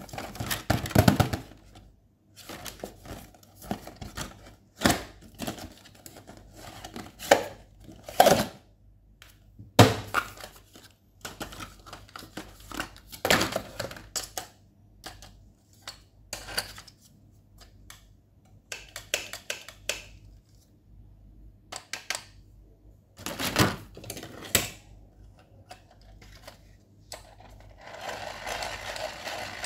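Hard plastic being handled: a clear plastic box opened and a plastic desk pencil sharpener taken out and turned over, giving scattered clicks, taps and knocks. Near the end there is about two seconds of steady scraping.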